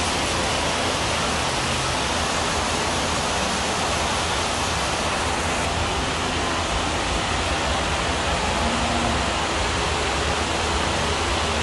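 Large drum fans running in a cattle barn, a steady rushing noise of blown air.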